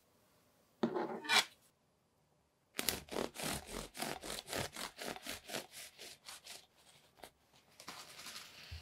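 Knife sawing lengthwise through a freshly baked Viennois roll on a wooden board, with a brief scrape about a second in. It is followed by a run of even back-and-forth strokes through the crust, about four a second, that fade toward the end.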